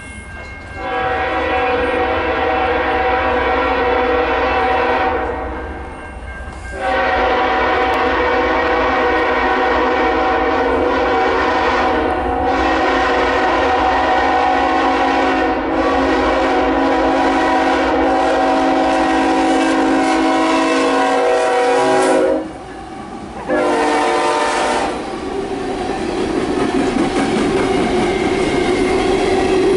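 Diesel freight locomotive's multi-chime air horn sounding three blasts: a short one, a long one, then another short one. Near the end, the cars of an empty coal train rumble and clack past over the rails.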